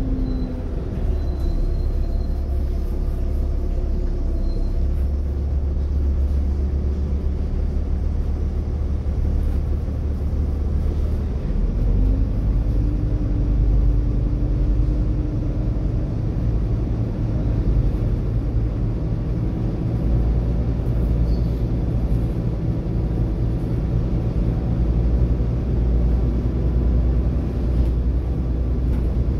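Volvo B7TL double-decker bus's six-cylinder diesel engine running on the road, a steady low rumble. Its note drops near the start and climbs again about twelve seconds in.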